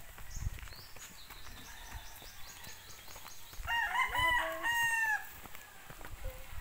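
A rooster crowing once, about halfway through: a few short notes and then a longer held note that falls away at the end.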